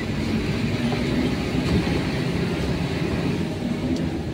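Truck engine running with road noise while driving, heard from inside the cab: a steady low rumble.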